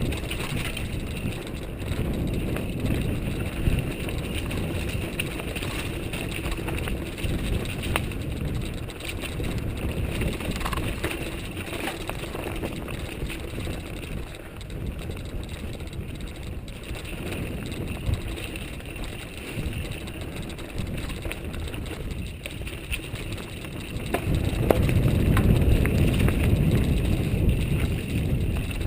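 Mountain bike riding a dirt trail: tyre rumble and the bike rattling over bumps, with wind buffeting the microphone. It gets louder about 24 seconds in.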